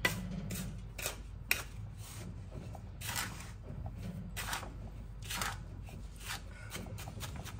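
Wooden spoon stirring and tossing a dry, crumbly panjiri mixture in a large aluminium pot, breaking up its lumps. It makes irregular gritty scrapes and rustles, roughly one a second, as the spoon drags through and the mixture falls back into the pot.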